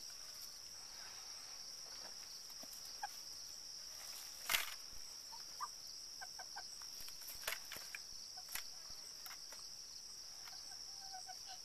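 Chickens pecking at a hamster water bottle, sharp taps a few seconds apart, with soft short clucks between them. Under it runs a steady high chirring of crickets.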